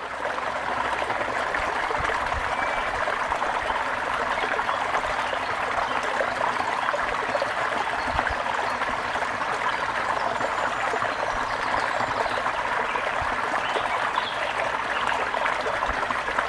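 Steady running water, an even rushing with no break or change.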